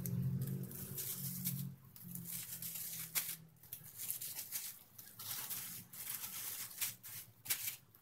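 Thin plastic bags crinkling and rustling in irregular bursts as bagged portions of meat are handled and the bags twisted and knotted shut.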